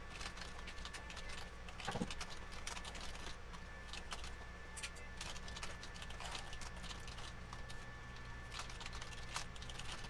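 Typing on a computer keyboard: an irregular run of quick, faint key clicks over a low steady hum.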